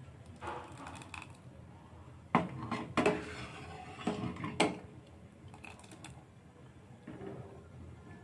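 Steel ladle stirring thick kheer in a stainless steel pot, scraping and clinking against the metal, with four sharp clinks between about two and five seconds in.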